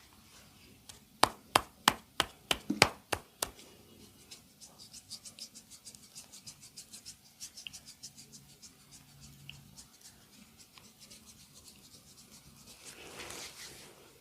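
Massage percussion by hand: about eight sharp slaps in quick succession a second or so in, then a long run of faint, fast light tapping.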